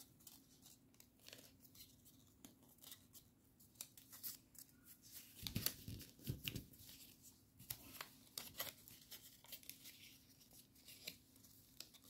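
Faint crinkling and rustling of paper being folded and creased by hand in a series of short irregular crackles, with a denser cluster about halfway through.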